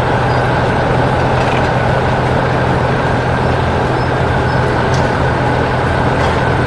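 Engines of heavy construction machines running steadily with a constant low drone.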